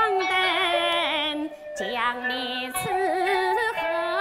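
Huangmei opera music: a melody with heavy vibrato and slides between notes over a steady held accompaniment tone, dipping briefly about a second and a half in.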